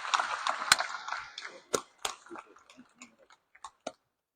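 Audience applauding, the clapping thinning out to a few scattered claps and stopping just before four seconds in.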